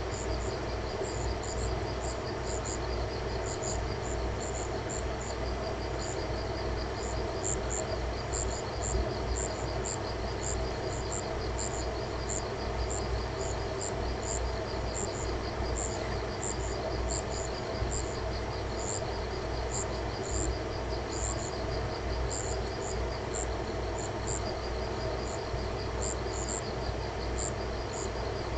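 Night insects calling: a steady fast trill with regularly repeated paired chirps above it, over a steady low hum.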